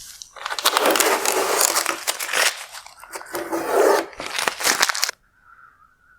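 Blue painter's tape being peeled off a plastic headlight lens, a crackling, crinkling tear lasting about five seconds that stops abruptly.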